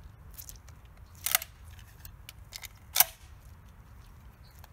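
Metallic clicks from a semi-automatic shotgun being handled: two sharp ones about a second and a half apart, with lighter clicks around them.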